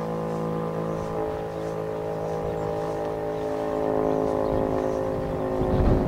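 STH-10 rotating warning siren sounding a steady tone, a chord of several pitches held level. A low rumble swells near the end.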